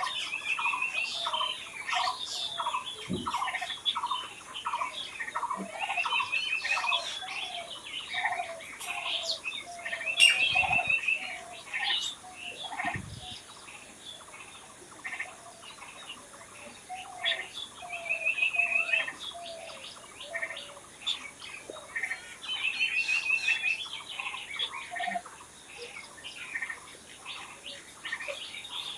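Several birds chirping and singing at once, with many short repeated calls and a quick trilled phrase that comes back every few seconds.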